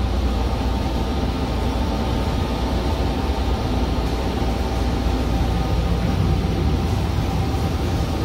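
Automated people-mover tram running along its guideway, heard from inside the car: a steady low rumble with a faint constant whine.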